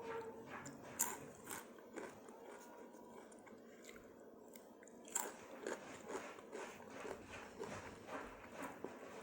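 A person chewing and biting crunchy food close to the microphone, with short sharp crunches and mouth clicks. It goes quieter for a few seconds in the middle, then the crunches come more often from about five seconds in.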